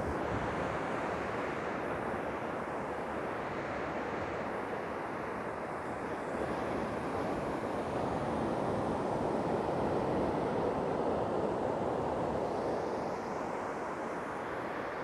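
Sea surf washing up a sandy beach: a steady rushing of breaking waves that swells a little midway.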